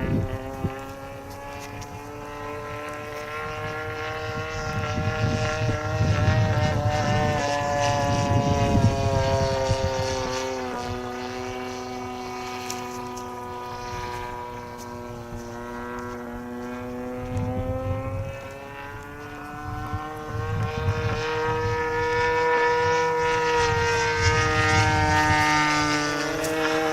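Electric-powered Acrowot XL radio-controlled model plane flying, its motor and propeller making a steady drone that slowly rises and falls in pitch as it passes and the throttle changes. Wind buffets the microphone in gusts.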